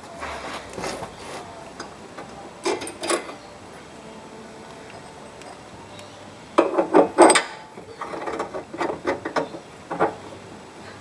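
Tools and metal suspension parts being handled under a car: irregular clinks and knocks, a pair about three seconds in and a busy cluster after about six and a half seconds.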